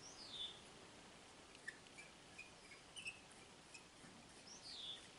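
Faint bird calls: a high whistle sliding downward near the start and again near the end, with a few short chirps between them. A few faint clicks come from small revolver parts being handled.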